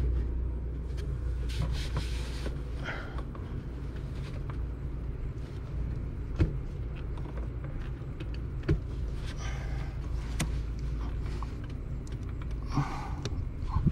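Hands and sleeves working deep in an engine bay to pull out an ignition coil: fabric rustling and a few sharp plastic-and-metal clicks, over a low steady rumble.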